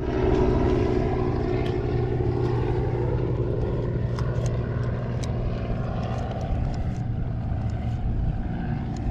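Boat's outboard motor running at a steady speed.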